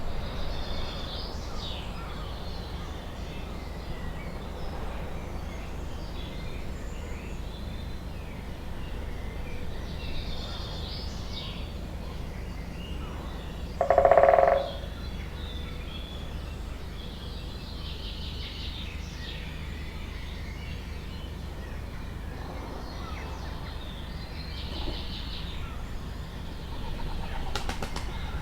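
Forest songbirds chirping and trilling in short high phrases, with one louder, lower call lasting under a second about halfway through, over a steady low background rumble.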